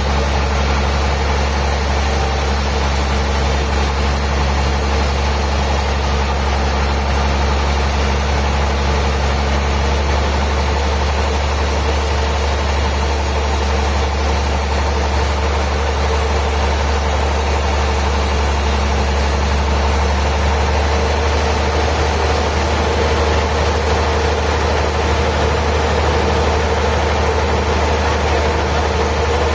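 Sawmill machinery running steadily: an engine holds an even speed under a strong, constant low hum, with no pauses or strokes.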